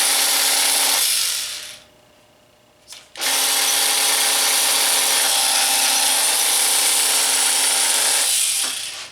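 Corded hammer drill with smoking, overloaded motor windings, run at full trigger: it turns slower than it should and runs rough. It runs for about a second and spins down, then after a click it starts again about three seconds in, runs steadily for about five seconds and spins down.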